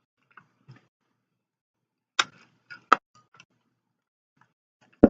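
A few sharp clicks or taps: two about two to three seconds in and a louder one near the end, with only faint soft ticks in between.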